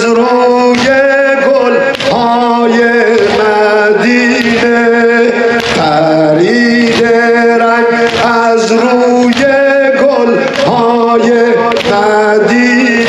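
Men chanting a Shia mourning lament (nowheh) in Persian, with the regular slaps of hands beating on chests in time (sineh-zani).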